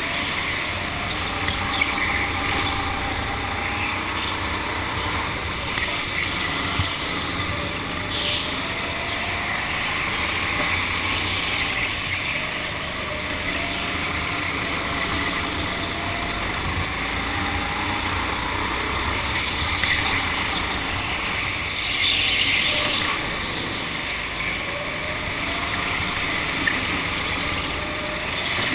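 Go-kart engine running, its pitch rising and falling with the throttle, over a steady rushing noise. A brief louder hiss comes about three-quarters of the way in.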